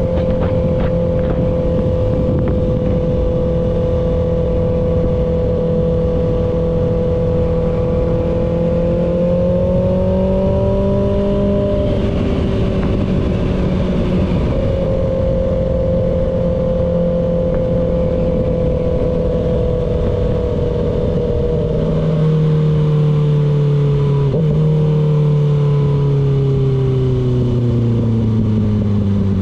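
Kawasaki ZX-6R inline-four engine running at steady cruising revs over constant wind rush. The engine pitch rises a little about a third of the way in, holds, drops about three quarters of the way through, then falls steadily as the bike slows.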